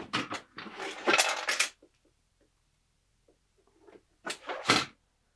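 Small hard objects clattering and clinking, in two bursts: a longer one in the first couple of seconds and a shorter one a little before the end.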